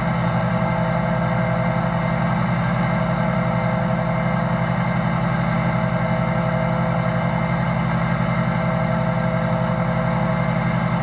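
Restored 1940s Delta shaper's 220-volt motor and spindle running steadily at speed with no cutting, a steady hum of several fixed pitches with a slight rapid pulsing.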